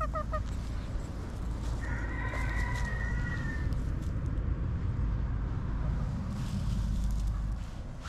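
Chickens clucking: a few quick clucks right at the start, then one drawn-out call about two seconds in that lasts nearly two seconds, over a steady low rumble.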